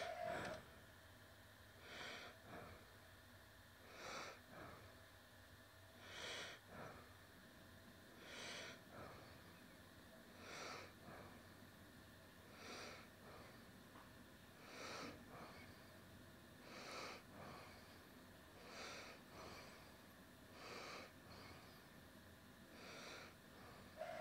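Faint breathing close to a microphone, one breath about every two seconds, with an in-breath and an out-breath in each.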